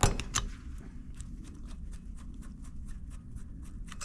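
Small hand-tool clicks while the banjo fitting is undone from a Hope X2 hydraulic brake: one sharp click, then a quick run of light, evenly spaced ticks, about five a second.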